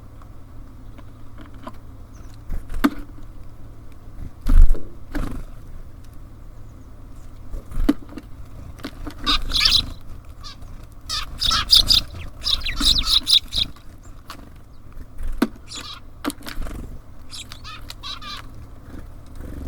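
Birds at a feeder: scattered taps and knocks from birds landing and pecking, with one loud thump about four and a half seconds in. Bursts of harsh, chattering bird calls come in the middle and again near the end, over a steady low hum.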